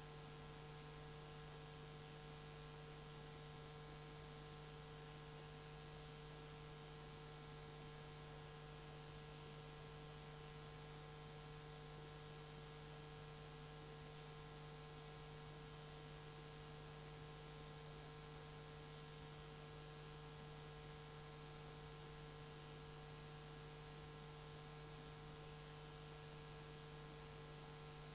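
Faint, steady electrical hum: a few fixed tones under a thin hiss, unchanging throughout.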